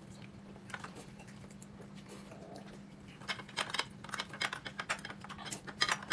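Light, irregular clicks and taps of tableware, chopsticks and spoons against bowls and dishes at a meal, starting about three seconds in after a quiet stretch, over a faint steady hum.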